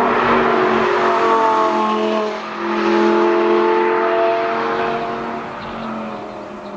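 Lamborghini Gallardo LP560-4's V10 engine revving through its exhaust: the pitch climbs about a second in, drops back briefly, climbs again, then falls away and quietens over the last couple of seconds.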